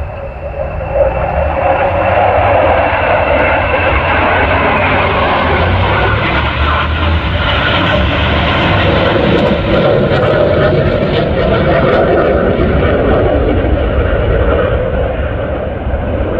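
Jet engines of a pair of fighter jets flying past: a loud, steady rushing noise that comes up about a second in and holds.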